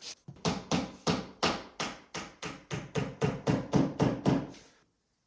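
A hand tool working through drywall in rapid, even strokes, about four a second, stopping shortly before the end.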